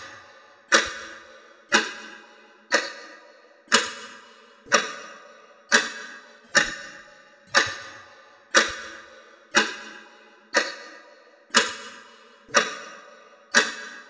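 Quartz analog alarm clock ticking loudly and evenly, about one tick a second. Each sharp tick is followed by a short ringing tail that fades before the next.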